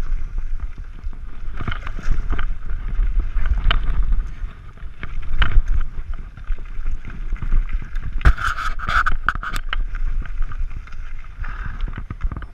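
Mountain bike riding fast over a dirt and gravel trail: wind buffets the camera microphone with a steady rumble, while the tyres and the rattling bike add frequent knocks over the bumps. A cluster of sharper rattles comes about eight to nine and a half seconds in.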